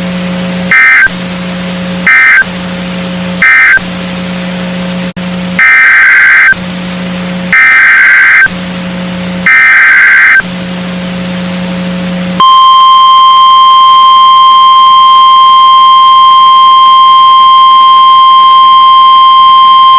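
Emergency Alert System tones on NOAA Weather Radio: three short screechy digital data bursts (the end-of-message code), then three longer data bursts (the SAME header for the next warning). About twelve seconds in comes the steady, single-pitch weather radio warning alarm tone. A low hum sits between the bursts.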